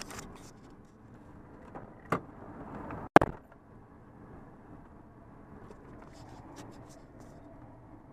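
Vehicle driving downhill, heard from inside: a steady low road-and-engine rumble, with a click about two seconds in and a sharp knock about a second later.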